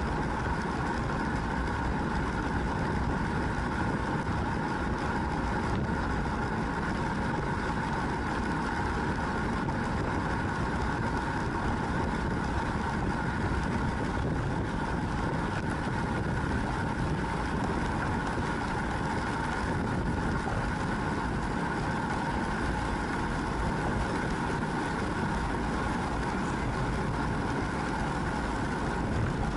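Steady rush of wind and tyre noise on a bicycle-mounted action camera riding with a group of road cyclists at about 45 km/h, a constant low rumble with a faint steady hum.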